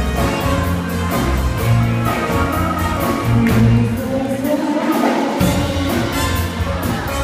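Live band playing dance music with a female singer over keyboard, guitar, bass and drums. About four seconds in, the bass and drums drop out for roughly a second, then come back in.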